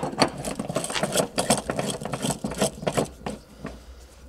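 LPG pump nozzle being screwed onto a car's autogas filler adapter: a busy run of irregular metallic clicks and rattles that dies away about three and a half seconds in.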